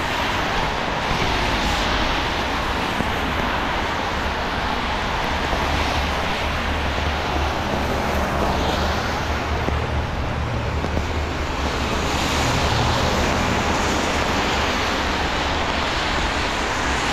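Steady rain falling on an umbrella held just overhead, mixed with traffic on a wet street; a low vehicle rumble swells through the middle.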